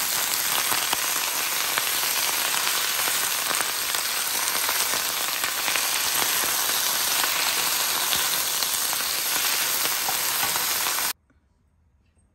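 Leafy greens sizzling as they are stir-fried in a hot skillet, with a metal spoon tossing them and occasionally clicking against the pan. The sizzle cuts off abruptly about a second before the end.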